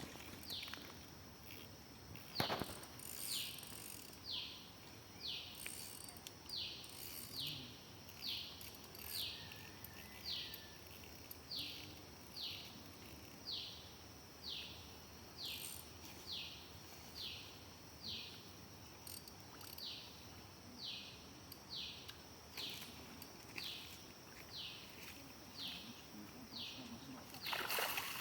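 An animal call outdoors: a steady run of short, high, falling chirps, about three every two seconds, over a faint high insect-like hiss, with a single sharp click a couple of seconds in.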